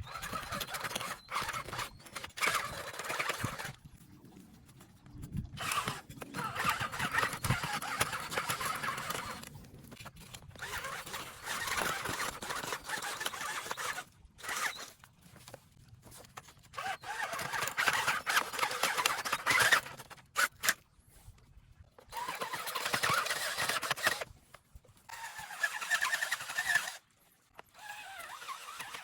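Power drill with an auger bit boring planting holes in garden soil, running in repeated bursts of a few seconds each with short pauses between.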